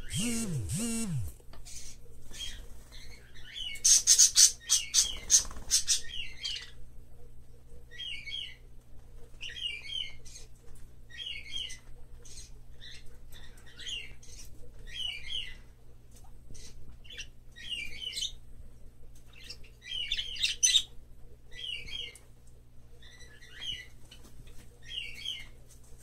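Green-cheeked conure calling: short chirps repeated about once a second, broken by loud bursts of harsh squawks about four seconds in and again near twenty seconds.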